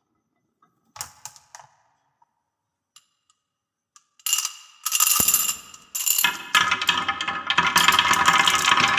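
Balls on a marble run: a few scattered clicks of single balls, then from about four seconds in a dense, continuous clatter with ringing as many balls roll and knock down the track together.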